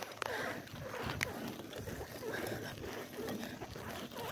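Bicycle being ridden on a paved path on nearly flat tyres: a steady rolling and rustling noise with scattered sharp knocks and rattles, the clearest near the start and about a second in.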